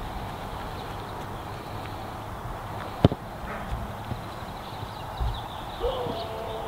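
Open-air ambience: a steady low rumble with a few soft thumps, one sharp click about three seconds in, and a faint short tone near the end.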